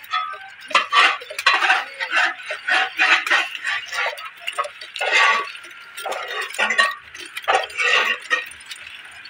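Irregular clatter of hard knocks and clinks, many close together, as cut sugarcane pieces are handled and knocked against each other while they are washed.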